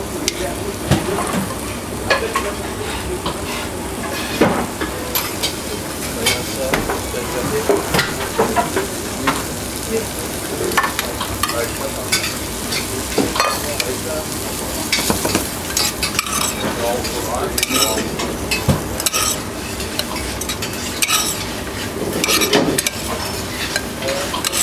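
Young vegetables sizzling in butter in a pan while being stirred, with frequent short clicks and scrapes of a utensil against the pan.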